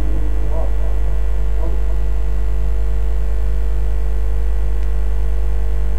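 Steady low electrical mains hum, with faint echoes of a reciting voice fading out in the first two seconds.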